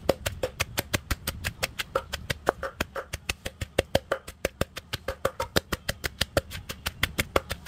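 Wooden pestle pounding fresh chilies, garlic and shallots in a mortar: a fast, even run of knocks, several strokes a second, as the jaew chili paste is crushed.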